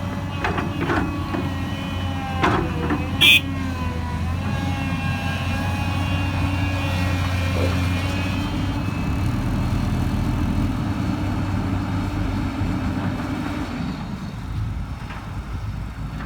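Hydraulic excavator working: its diesel engine runs steadily while a few metallic knocks sound in the first three seconds, with a short sharp burst about three seconds in. Thin squealing tones follow for several seconds, and the engine note shifts lower about nine seconds in.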